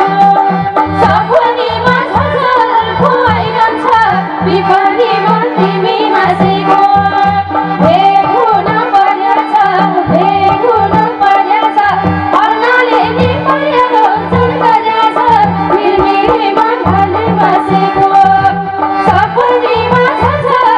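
Nepali dohori folk music played live: a wavering sung melody over a steady hand-drum rhythm. The drum thins out for a few seconds about halfway.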